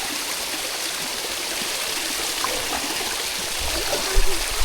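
Shallow water running steadily down the stepped limestone cascades of a waterfall, an even rushing hiss. A couple of low thumps near the end.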